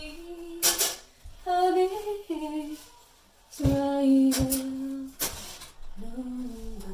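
A voice singing and humming a wordless tune in held notes in a small room, with two short rushes of noise about a second in and near the five-second mark.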